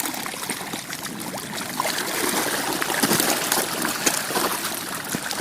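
Water splashing and churning, with many small irregular splashes, as a dense crowd of African catfish (Clarias gariepinus) thrashes at the surface fighting for food. It grows a little louder in the middle.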